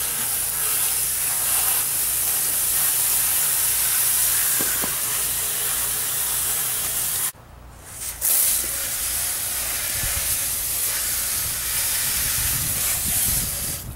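Steady hiss of water jets spraying from a garden-hose-fed PVC pipe underbody washer, with a short break about seven seconds in.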